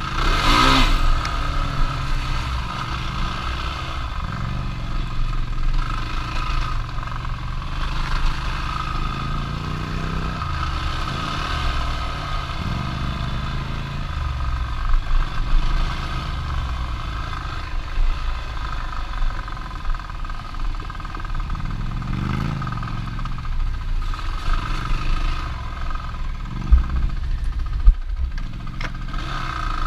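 Off-road vehicle engine running while being ridden, its pitch rising and falling repeatedly with the throttle, with two sharp knocks near the end.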